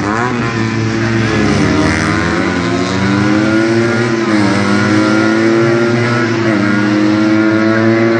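Car engine working hard round a tight course: its pitch climbs, then falls back as the driver lifts off or shifts, about four times, roughly every two seconds.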